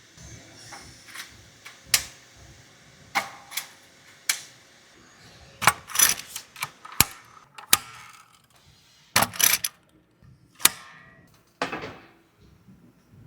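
Irregular sharp metallic clicks and clanks of hand tools and metal parts being handled and set down, about a dozen strikes at uneven spacing, some with a brief ring.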